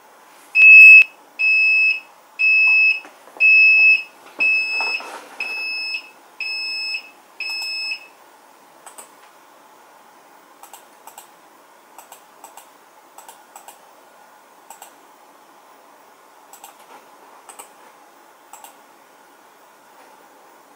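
Zmodo video recorder's buzzer giving eight short, evenly spaced high beeps, about one a second, each quieter than the first. Faint scattered clicks follow.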